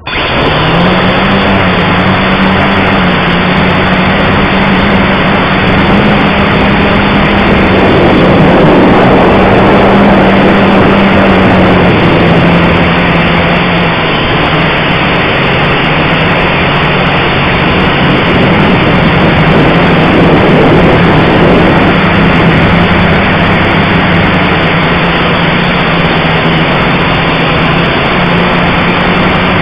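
Blade 180 QX quadcopter's motors and propellers buzzing steadily at close range, with a dense rushing noise over the buzz. The pitch wavers slightly as the drone flies.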